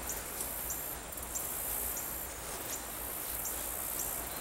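Insects in the surrounding vegetation making a steady high-pitched buzz, with a short chirp repeating about every two-thirds of a second.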